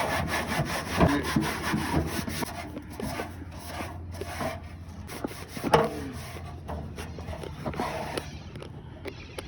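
A rag wiping and scrubbing the inside of an HVAC unit's cabinet in repeated rubbing strokes, over a low steady hum. The strokes thin out near the end.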